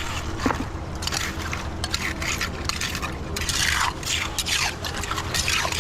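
Clam-digging tool scraping through wet tidal-flat mud and sand: a run of short scraping strokes with wet, watery sounds mixed in.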